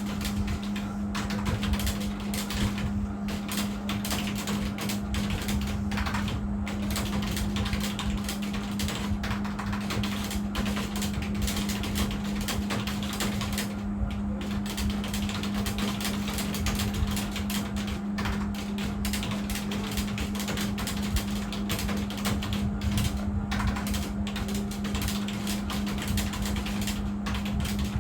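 Computer keyboard typed on fast and continuously, a dense stream of key clicks over a steady low hum.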